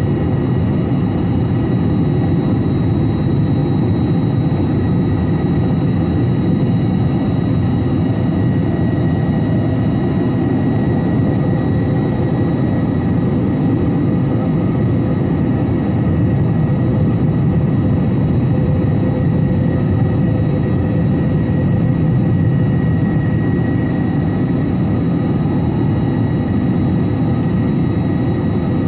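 Steady in-flight drone of an Airbus A321 with CFM56 engines, heard from the cabin: a deep engine and airflow rumble with faint steady high whines above it.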